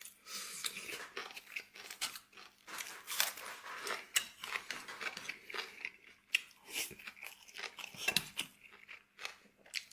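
A person chewing and biting food close to the microphone, eating tomato-braised pork ribs with rice: an irregular run of wet crunches and mouth clicks.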